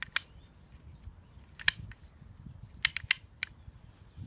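Sharp mechanical clicks from the action of an unloaded Nagant M1895 revolver being handled and worked: a double click at the start, a single click, then four quick clicks near the end.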